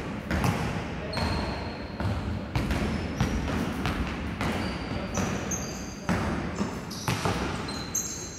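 Basketball dribbled on a hardwood gym floor, bouncing about every half second to second with an echo from the hall, mixed with short high squeaks of sneakers on the court.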